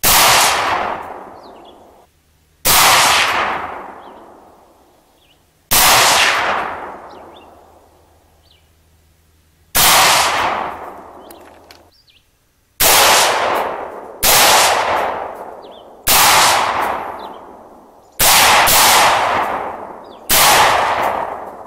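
AR-15 rifle fired about ten times at a slow, deliberate pace, a couple of seconds between shots, with two shots close together near the end. Each shot is followed by a long echo fading over about two seconds. The shots are test-fired to check the zero of its just-lowered red-dot sight.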